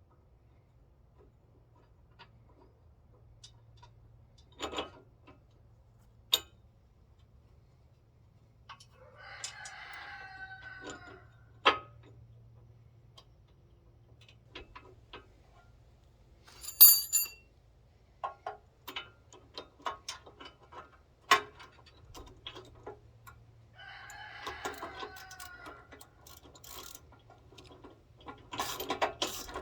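Hand tools working on a steel winch bumper: scattered metallic clicks and clanks, ending in a fast run of ratchet clicks as bolts are tightened. A rooster crows twice in the background, each crow lasting two to three seconds.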